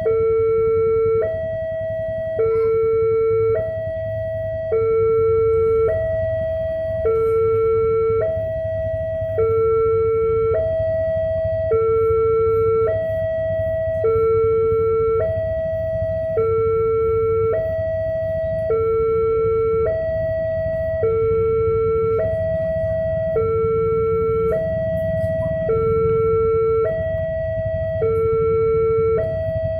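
Railway level crossing warning alarm sounding its two-tone electronic signal, switching back and forth between a lower and a higher tone, each held about a second, over a low rumble. It signals that a train is approaching and the crossing is closed.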